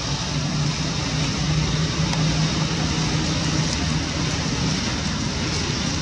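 A steady low hum over a constant hiss, unchanging in level throughout.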